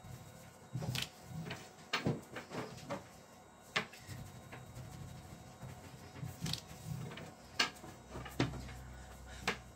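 Long thin wooden rolling pin (oklava) rolling a baklava dough sheet on a tabletop, with scattered sharp knocks and clicks as the pin and hands strike the table, about eight over several seconds.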